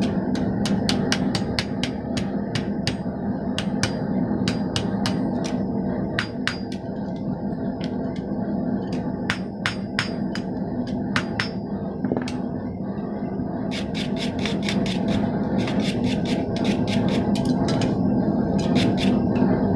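Hammer blows ringing on hot steel stock at the anvil: many sharp strikes, spaced irregularly at first, then in quick runs of rapid blows for the last several seconds. A steady low hum runs beneath.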